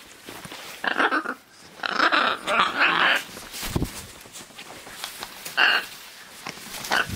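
Scarlet macaw making harsh, raspy calls in short bouts while playing on its back: one about a second in, a longer run of calls around two to three seconds in, and short ones later and near the end.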